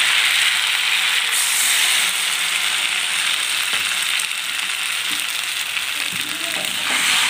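Chilli chicken with onion and capsicum sizzling steadily in a hot wok as cornflour slurry goes in. The hiss turns brighter about a second in.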